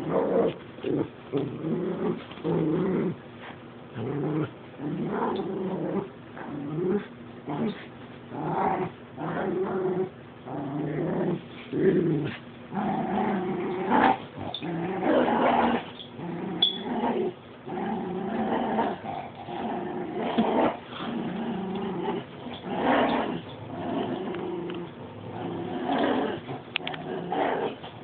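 Dogs growling in play during a tug-of-war over a toy: rough growls in short bursts, one after another with brief pauses.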